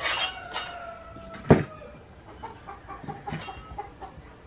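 A rooster crowing: one long call with a slightly falling pitch, overlapped by a single sharp knock about one and a half seconds in. Fainter short clucks follow.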